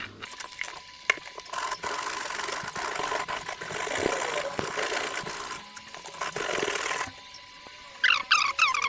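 A Victorinox Santoku's steel blade is being scraped back and forth on coarse 60 grit sandpaper, a rasping scrape lasting several seconds as metal is ground off to thin the blade. It is followed by a few short high squeaks near the end.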